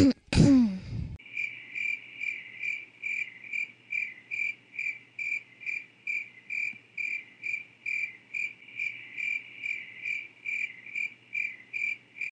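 Two short sounds falling in pitch in the first second, then crickets chirping in an even rhythm of about two to three chirps a second: the stock crickets gag for a flop, here after the pull-up fire alarm fails.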